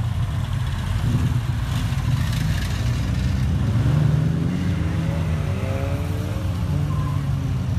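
Car engine running at low revs with a deep, steady note, revved up with a rising pitch about five seconds in.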